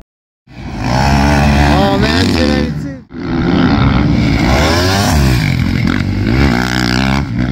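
Motocross bike engine revving hard as it races past, its pitch climbing and dropping again and again. The sound starts abruptly after a short gap and breaks off briefly about three seconds in, where one shot cuts to the next.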